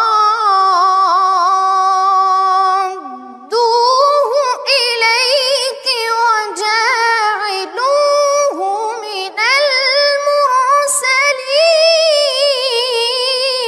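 A boy's voice reciting the Quran in melodic tajwid style. Long notes are held with wavering ornaments, there is a short breath about three seconds in, and then a run of melismatic phrases follows.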